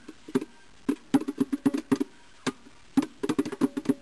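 Rhythmic hand drumming: palms slapping small drum-like objects in a beat, with runs of quick hits broken up by single strikes.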